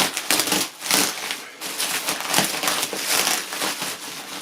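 Packing material crinkling and rustling in irregular bursts as it is handled and pulled away while a boxed typewriter is unwrapped.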